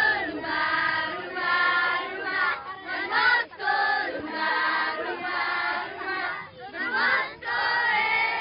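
A group of schoolgirls singing a song together in chorus, in phrases of held notes with short breaks between them.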